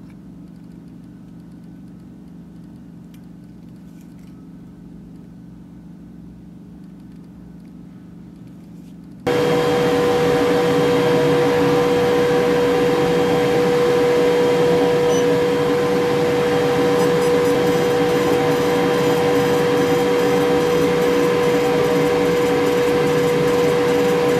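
Faint low room hum, then about nine seconds in a loud, steady machine whir with a constant humming tone starts suddenly: a diode laser engraver running as it burns a design into black leather.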